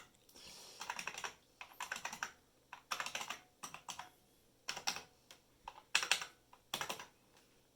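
Typing on an IBM Model M buckling-spring keyboard: clacking keystrokes in short, uneven bursts with brief pauses between them.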